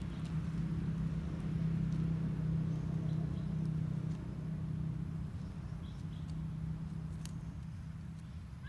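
A motor engine running in the background as a steady low hum, swelling over the first few seconds and then easing off, with a few faint clicks.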